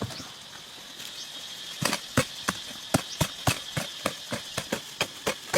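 A run of sharp knocks, about three a second, starting a little under two seconds in, over a steady high drone.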